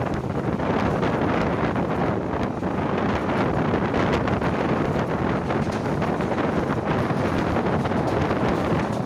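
Wind buffeting the microphone at the open door of a passenger train running at speed, over the steady rumble of the coach's wheels on the track.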